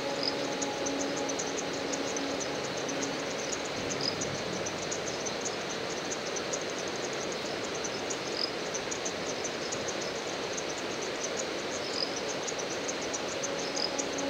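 Insects chirping in a rapid, steady pulse over a constant hiss, with a short, separate chirp every few seconds.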